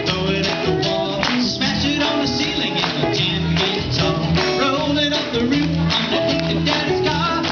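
Live band playing a song with a steady beat: electric guitar, bass guitar and drum kit.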